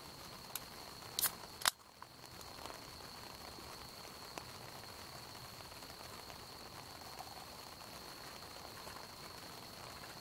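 Campfire crackling softly, with a few sharp pops in the first two seconds, the loudest just under two seconds in. A thin, steady high-pitched tone runs underneath.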